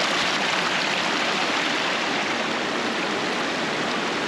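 Glacier-fed mountain stream rushing and splashing over rocks: a steady, loud hiss of running water.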